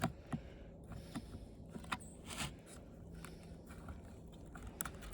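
Faint, scattered clicks and crackles of stiff plastic being peeled and bent off by hand to free the copper from an old TV.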